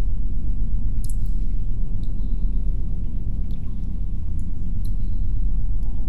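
Steady low muffled rumble, as if heard through thick walls, with a few faint light ticks scattered over it.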